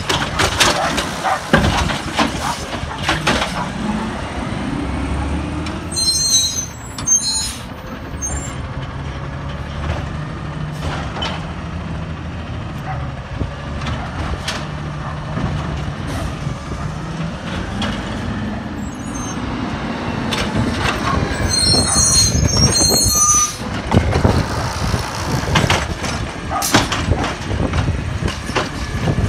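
Peterbilt 320 automated side-loader garbage truck running on compressed natural gas. The engine revs and settles as the truck pulls up between stops, the lifting arm tips carts with repeated bangs and clatter, and the air brakes hiss twice.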